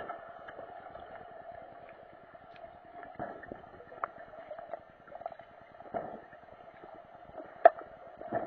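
Muffled underwater pool noise picked up through a camera's waterproof housing during underwater hockey play, a steady dull hum broken by scattered sharp clicks and knocks, the loudest near the end.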